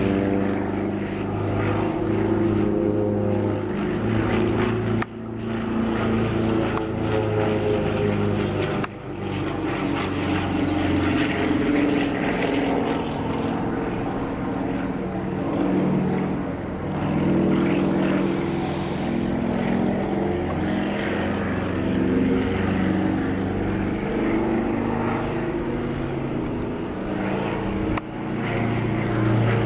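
Propeller airplane engine running steadily, its pitch shifting slowly as the aircraft flies about, with brief sudden dips in level a few times.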